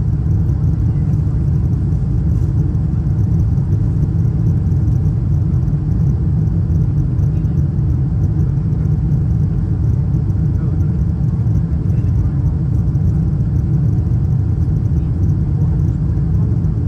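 Cabin noise inside a Boeing 747-8 Intercontinental airliner: a steady, loud low rumble.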